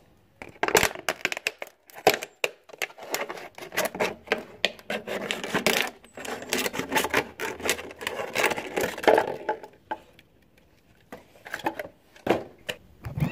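Scissors cutting through a thin plastic water bottle: a dense run of sharp snips and plastic crackles, pausing briefly about ten seconds in before a few more cuts.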